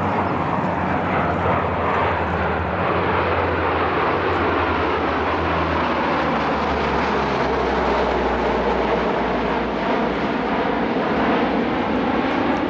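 A formation of C-130 Hercules four-engine turboprop transports flying low overhead, their engines and propellers running in a loud, steady drone. The pitch falls as the aircraft pass over.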